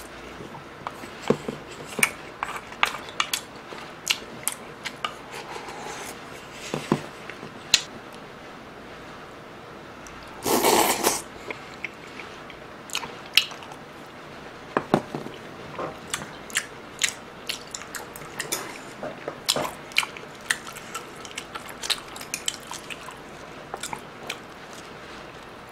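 Close-miked eating of tteokbokki and fried food: wet chewing and mouth smacks, mixed with light clicks of a spoon and chopsticks against the food trays. About ten and a half seconds in there is one longer, louder slurp from the spoon.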